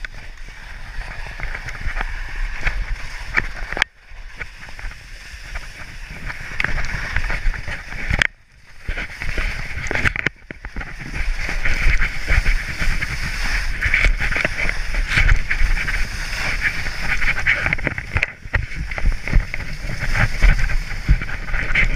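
Skis hissing and scraping through wet spring slush while skiing downhill, with wind rumbling on the body-worn camera's microphone. The ski noise drops away briefly about four times.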